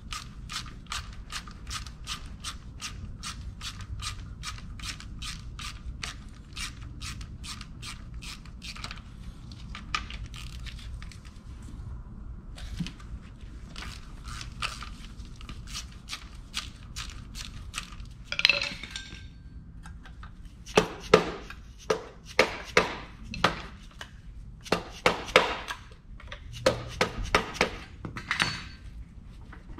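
Ratchet wrench clicking quickly and evenly, about three or four clicks a second, as the bolts of a Ferrari 330 V12 engine mount are turned out. From about two-thirds of the way in, a series of a dozen or more sharp hammer blows on metal, the first ringing briefly.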